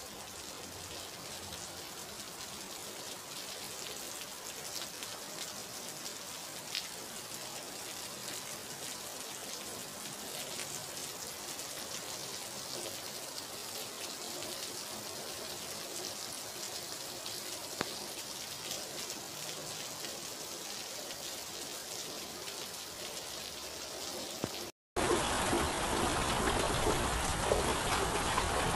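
Steady rain falling, an even hiss of drops with a few faint ticks. About 25 seconds in it cuts off for a moment and gives way to louder rain.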